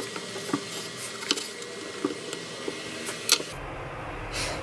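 Scattered light clicks and taps as hands pull apart and handle pieces of salt-cured dried beef on a wooden cutting board, the loudest tap a little over three seconds in.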